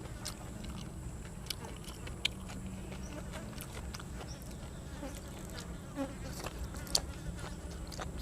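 Close-up eating sounds: a few sharp, crisp crunches of chewing over a steady low buzz.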